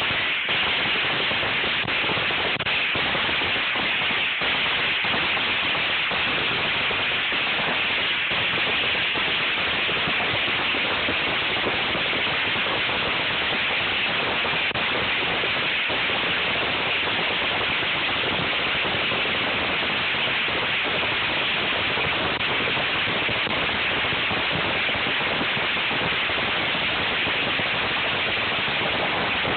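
Fireworks crackling and hissing without a break, a dense, steady noise with fine crackles running through it.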